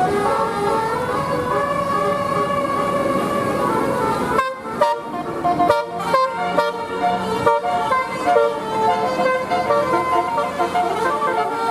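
Basuri telolet bus horn playing a multi-note tune, at first as a chord of several held tones, then about four seconds in as short separate notes with gaps between them.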